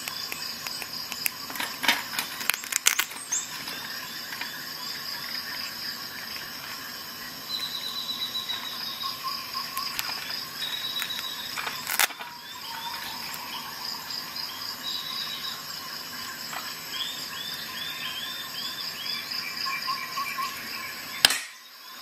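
A few sharp clicks and taps from small multi-tools and a keyring being handled, most of them in the first few seconds, with single louder clicks about halfway and near the end. Under them runs a steady background of repeating high chirps.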